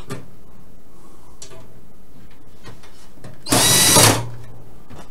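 Red cordless drill-driver running once for under a second about three and a half seconds in, driving a case screw tight into the metal drive cage of a PC tower case. A few faint handling clicks come before it.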